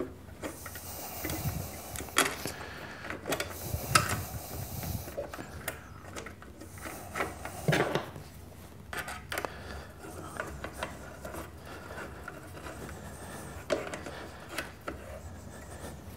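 Hands fitting a cap screw and aluminum tool rest onto the steel brace rod of a bench grinder: scattered light metal clicks, taps and scraping as the parts are handled and the screw is started.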